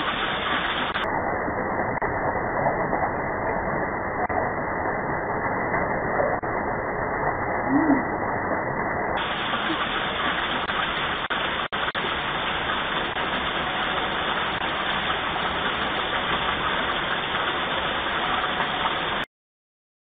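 Steady rain falling, an even rush of noise through a doorbell camera's small, muffled microphone. It cuts off suddenly near the end.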